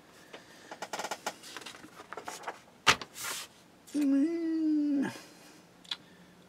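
Paper instruction sheet being handled and slid on the bench, a run of crackles and taps, then a short held vocal sound, like a hummed "hmm", lasting about a second.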